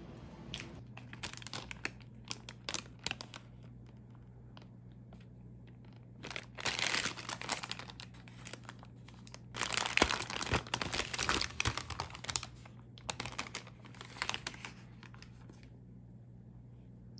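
Paper food bag crinkling and rustling as it is handled and opened by hand, with some tearing, in several bursts of a second or two that are loudest near the middle.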